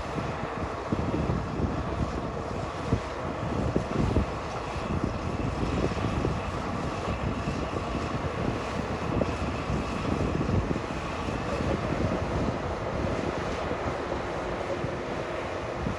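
Heavy earthmoving machine's engine running steadily at the worksite, with wind buffeting the microphone in gusts.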